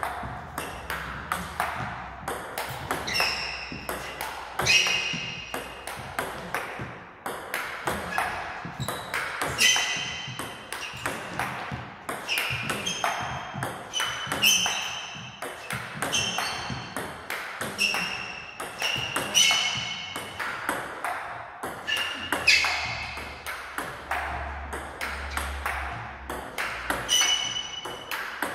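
Table tennis ball clicking off rackets and the table during chopping practice. Among the rapid clicks, a ringing ping sounds about every one to two seconds.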